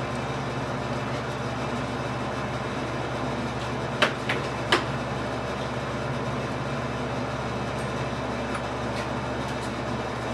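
Steady hum of running shop machinery with three sharp metal clinks about four to five seconds in, as a lathe cutting tool is taken out and tooling is handled.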